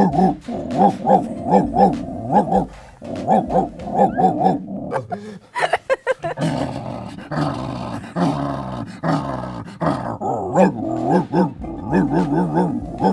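A man's voice imitating a big bulldog, barking and growling with his mouth inside a large plastic bucket. The barks come in quick runs of short, evenly spaced pulses, with a longer, more continuous growl in the middle.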